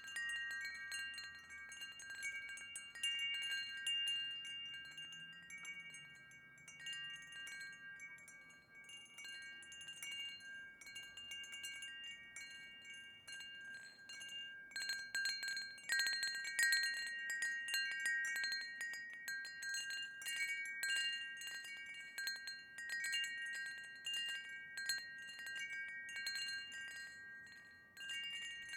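Wind chimes ringing: several clear tones, restruck again and again with light clinking, the strikes busiest about halfway through.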